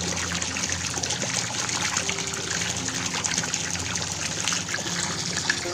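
Steady stream of water pouring from an inlet pipe into a koi pond, splashing and bubbling at the surface.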